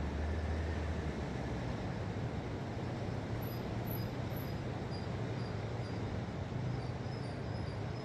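Sea waves washing steadily, an even rushing noise with a low rumble underneath. Faint, short, high chirps repeat through the second half.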